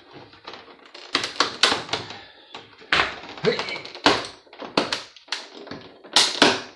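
PlayStation 3 plastic casing and parts being prised and knocked apart by hand and tool: irregular sharp clicks, cracks and knocks.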